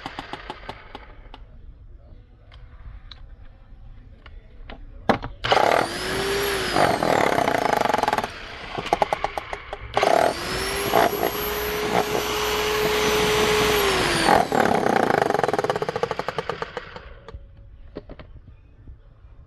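Bauer 1641e-b SDS combination hammer drill run twice, first about five seconds in and again about ten seconds in. Each time the motor whine rises as it spins up, holds steady for a few seconds, then falls as it winds down. The second run ends in a rapid hammering clatter that slows and dies away.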